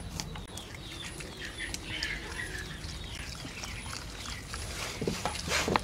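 Baby macaque sucking and chewing on its fingers, with wet clicking mouth sounds and a run of faint, short, high squeaks that slide down in pitch, typical of a hungry infant monkey whimpering. A louder, rougher squeal comes about five seconds in and again just before the end.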